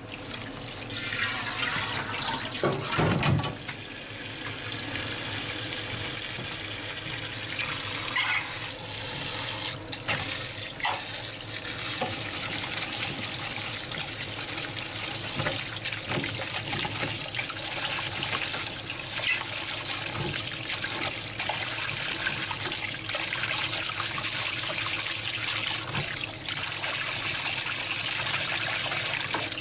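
Tap water running and splashing into a plastic colander in a steel sink while hands rinse and squeeze seaweed, with a few short knocks and clatters.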